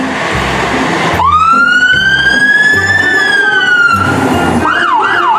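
A siren starts after about a second of rushing, hiss-like noise. It gives one long wail that rises, holds and falls, then switches to quick rising-and-falling yelps, about three a second, near the end.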